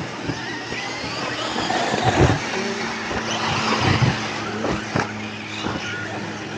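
Large electric RC cars running, the brushless motor whine rising and falling over tyre noise, with two loud thumps about two and four seconds in.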